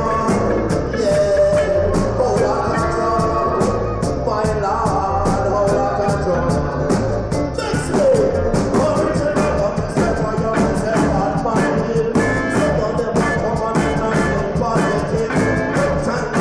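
Live reggae band playing at a steady, even beat, with drum hits and a wavering melodic line over the top.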